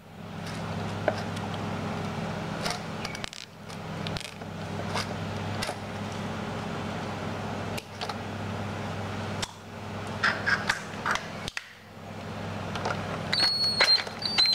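Light clicks and scrapes of a screwdriver working the Phillips terminal screw on a spa blower motor's brush bracket, over a steady low hum. Near the end there are a couple of short, high squeaks.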